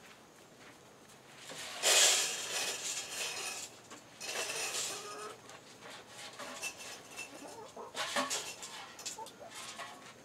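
Backyard chickens clucking in their run, broken by three loud rustling, rattling bursts: the first about two seconds in and the loudest, another just after four seconds, and a third near eight seconds.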